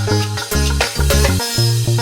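Background music: an upbeat dance track with a bass line and shaker-like percussion keeping a steady beat.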